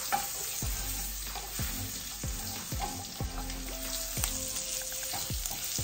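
Salted pork pigtails and fatback sizzling as they brown in a frying pan, with a wooden spoon stirring and scraping through them in repeated strokes.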